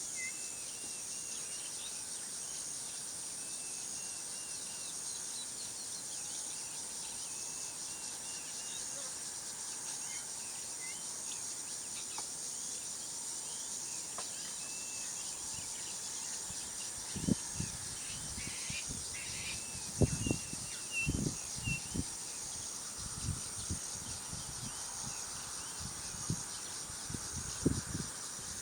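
Hot-day bush ambience: a steady high insect drone with a regular pulsing note, and scattered short bird chirps in the first half. From about halfway through, irregular dull low thumps and bumps come and go and are the loudest sounds.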